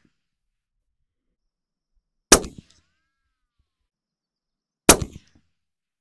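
Two shots from a suppressed .308 bolt-action rifle fitted with a SureFire SOCOM suppressor, about two and a half seconds apart. Each is a sharp report with a short decaying tail.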